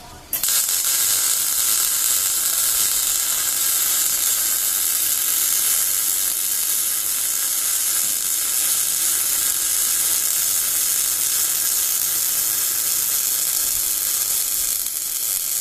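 Electric arc welding a crack in a motorcycle frame, laid as one continuous bead: a steady, loud crackling sizzle that starts suddenly about half a second in and runs without a break.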